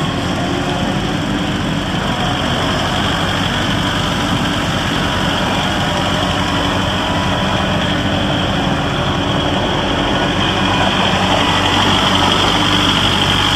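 Kubota L4701 tractor's four-cylinder diesel engine running steadily, getting a little louder near the end.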